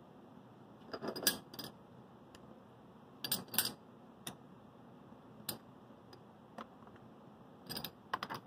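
Short metallic clinks and light knocks as a metal model-locomotive frame is handled and set in a steel milling vise: small clusters of sharp clicks about a second in, at about three and a half seconds and near the end, with single ticks between.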